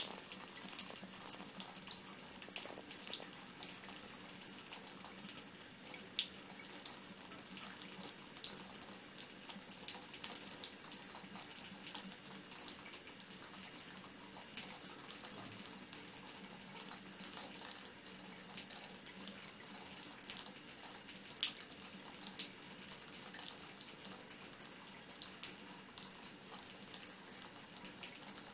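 Thin stream of water running from a bathtub spout and splashing into the tub. Many small irregular clicks and splashes come through as a cat laps at the stream.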